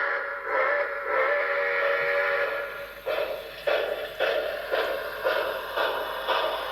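Paragon 4 sound decoder of a BLI HO scale Commodore Vanderbilt Hudson steam locomotive, heard through the model's small speaker: a chime steam whistle sounding in several blasts, then the steam exhaust chuffing at about two beats a second from about three seconds in as the locomotive pulls away.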